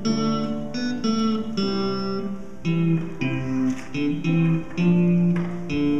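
Acoustic guitar playing a slow tune of held notes and chords, the notes changing about once or twice a second.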